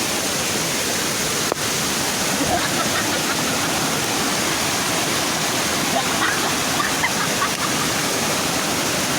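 Waterfall rushing as a steady, dense roar of falling water, with faint voices under it and a brief click about one and a half seconds in.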